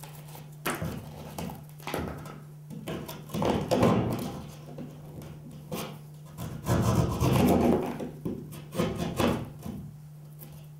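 Hand knife cutting through drywall around an electrical box opening: about six irregular cutting strokes, the longest about a second, over a steady low hum.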